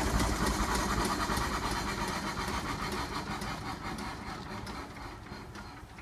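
The 1919 Blackstone crawler's engine running with a steady, even beat of firing strokes, gradually getting quieter.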